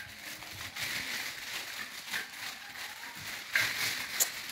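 Clear plastic gift wrapping rustling and crinkling as it is handled, louder with a few sharper crackles near the end.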